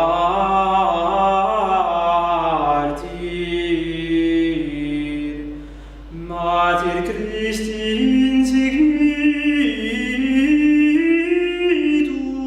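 Unaccompanied voices singing a slow late medieval polyphonic song in parts, with long held notes, pausing briefly about six seconds in before the next phrase.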